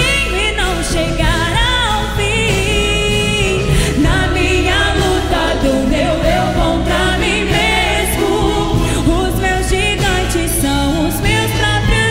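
A woman singing a Portuguese worship ballad into a microphone, with a live orchestra accompanying her.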